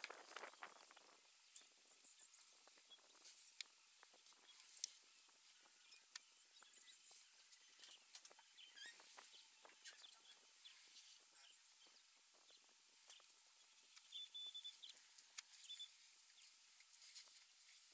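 Near silence: faint outdoor ambience with scattered soft rustles and clicks over a steady high hiss.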